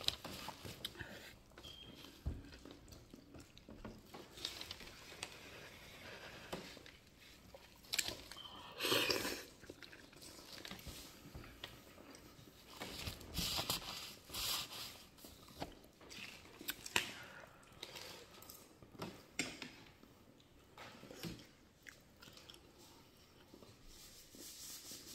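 A person chewing and smacking lips on a mouthful of lamb, potatoes and cabbage, close to the microphone, with scattered small clicks and one louder noise about nine seconds in.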